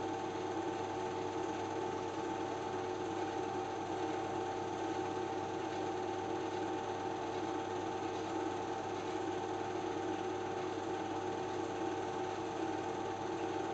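Film projector running: a steady mechanical whir and hum with a few constant tones, unchanging throughout.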